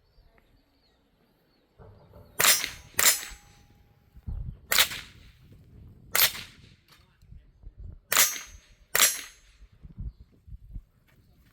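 Six shots from a Tippmann Arms .22 rifle fired at steel targets, in two quick pairs and two single shots spread over several seconds.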